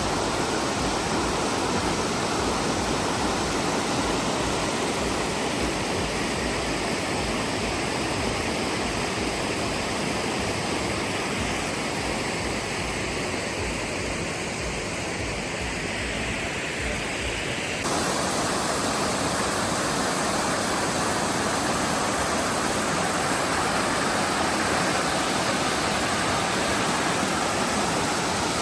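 Waterfall: a steady rush of falling water. About two-thirds of the way through it changes abruptly, becoming slightly louder and brighter.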